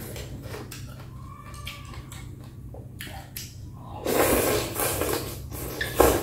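A person slurping bún bò Huế rice noodles: a loud wet slurp starts about four seconds in, lasts about two seconds and ends in a sharp smack. Before it there are only faint eating sounds.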